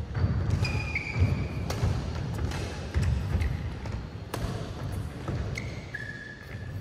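A doubles badminton rally: sharp racket strikes on the shuttlecock, short high shoe squeaks on the synthetic court mat, and thudding footsteps.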